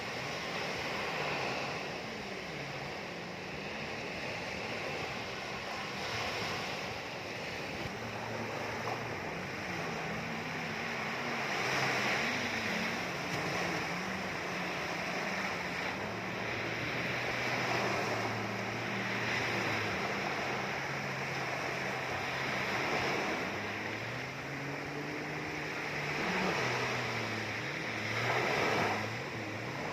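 Ocean waves washing and breaking, the surf swelling and falling back every few seconds, with faint low sustained tones gliding slowly underneath.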